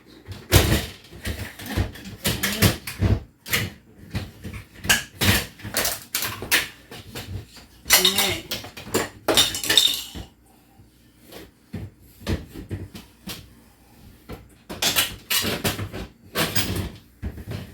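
Plastic refrigerator drawers and shelves being pulled out and handled, a run of knocks and clatter with a quieter spell about halfway through.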